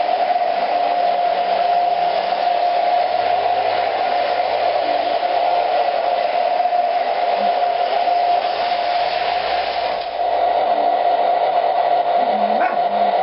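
Electric model train running along its track: a steady motor whine over an even hiss of wheels rolling on the rails.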